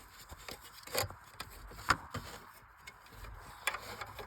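Plastic wiring connectors being handled and unplugged from the back of a car radio head unit: rubbing and scraping with a few sharp clicks, the loudest about two seconds in.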